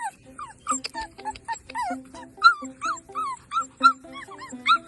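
Young puppies whimpering and yipping, a quick run of short, high, arching cries, two or three a second, over background music.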